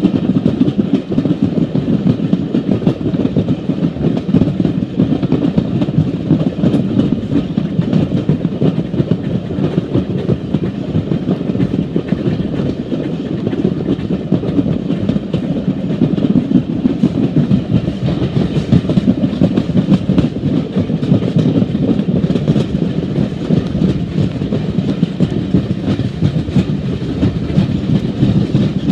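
Heritage passenger train running along the line, its wheels rumbling and clattering steadily over the track, heard from an open carriage window.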